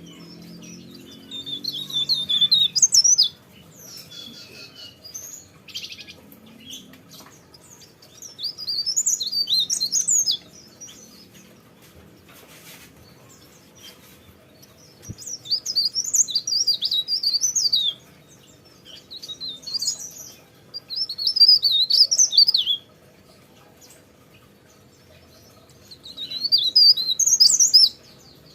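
A cikrak daun leaf warbler singing in full voice: high, fast, twittering phrases, repeated in about six bouts of two to three seconds with short pauses between them.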